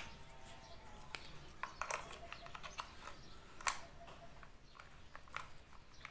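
Faint plastic clicks and rattles as AA batteries are fitted into a toy RC car's pistol-grip transmitter and its battery cover is handled, with one louder click a little past the middle.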